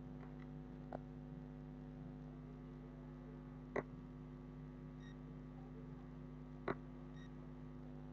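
Steady low electrical mains hum with three sharp computer mouse clicks, about a second in, near four seconds and near seven seconds.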